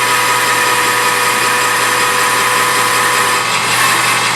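Metal lathe running steadily while its tool takes an outside-diameter turning cut on a small metal part, a constant machine noise with a steady whine.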